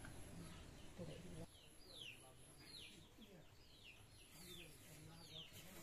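Faint bird chirping: short, quick falling chirps, coming more often in the second half, over low background noise.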